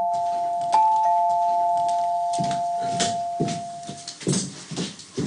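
Two-note doorbell chime, a higher note then a lower one, rung a second time about a second in, the notes ringing on and fading out. From about two and a half seconds in, a run of irregular knocks and thumps.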